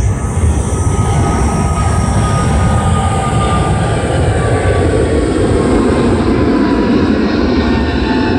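A passing vehicle: a steady, loud rumble with a faint whine that slowly falls in pitch.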